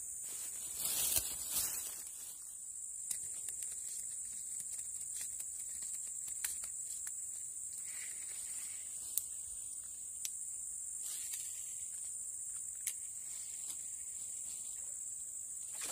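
Steady, high-pitched chorus of insects such as crickets or cicadas, with a few sharp clicks scattered through it and a brief rustle about a second in.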